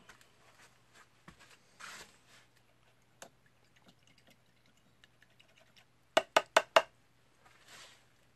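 Four quick, sharp knocks in a row about six seconds in, with soft rustling and small scattered clicks around them.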